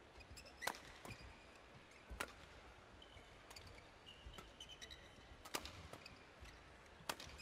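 Badminton rackets striking the shuttlecock in a doubles rally: four sharp cracks, each a second or more apart, with short squeaks of court shoes in the middle of the rally. Faint overall.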